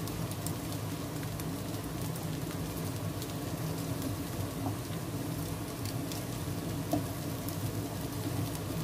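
Omelette frying in oil in a nonstick pan: a steady sizzle with fine crackles, over a low steady hum. Near the end there is one light tap.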